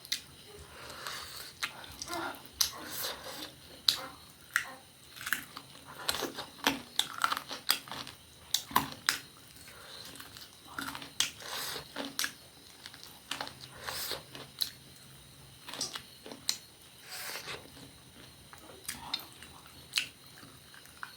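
A person chewing and biting food close to the microphone, with many short, irregular wet clicks.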